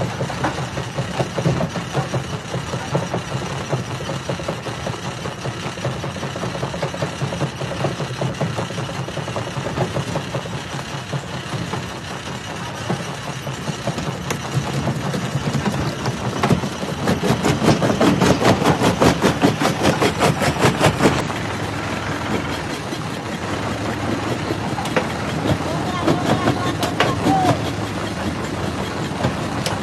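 Jaw rock crusher running and crushing stone, a steady heavy mechanical clatter. About two-thirds of the way through it grows louder with a fast, even rattle, then drops back suddenly.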